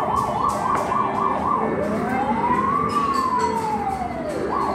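Electronic fire-truck siren: a fast warble of about three and a half cycles a second, then one slow wail rising and falling over about two and a half seconds, then the fast warble starting again near the end.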